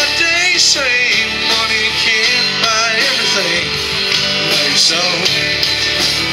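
Live country-rock band playing: electric and acoustic guitars, bass and drums, with a man singing lead into a microphone.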